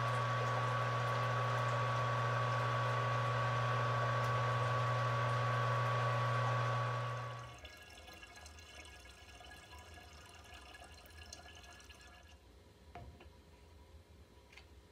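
Small electric pump humming steadily while wort rushes and splashes into a glass carboy; both stop abruptly about seven and a half seconds in. After that come faint, quieter handling sounds with a few small clicks.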